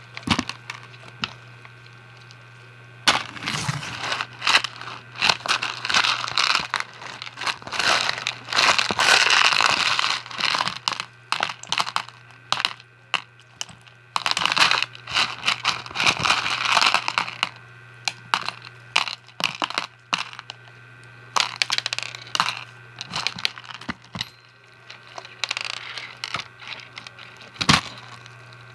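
Slime packed with fishbowl beads being kneaded and squeezed, giving off dense bursts of crunchy crackling and popping, which come and go as the slime is worked.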